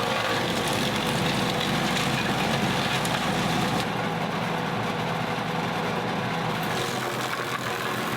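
Woods wood chipper running steadily with its engine. Its higher-pitched content drops away about four seconds in while the engine carries on.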